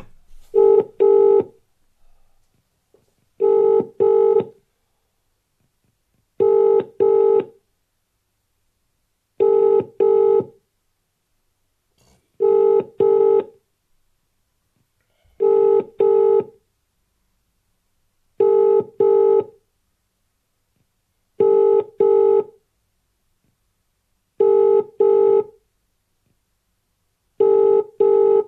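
British telephone ringing tone heard by the caller: the double ring, two short beeps repeated about every three seconds, ten times over, the call ringing on unanswered.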